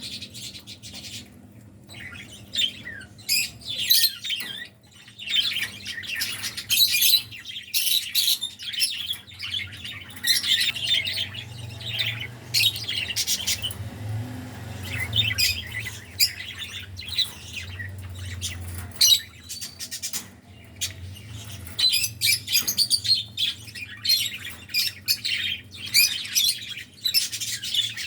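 Lutino cockatiels chirping and squawking in repeated short bursts, with a low hum in the middle of the stretch.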